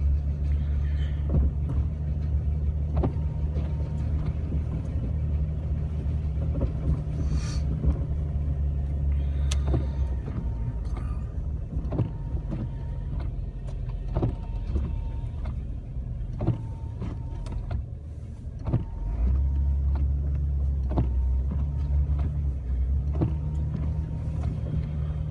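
Jeep Wrangler running in four-wheel drive over a snow-covered road, heard from inside the cab as a steady low engine and road drone. The drone eases off for several seconds midway, then picks up again. A short sharp tick recurs about every two seconds.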